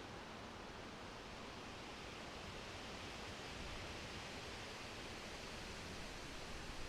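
Steady rain falling, an even hiss with no separate drops or strikes standing out.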